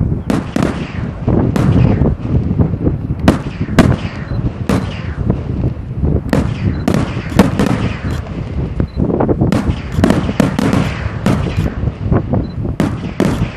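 Fireworks display: aerial shells bursting in a rapid, irregular string of loud, sharp bangs, several a second, each trailing a low echo.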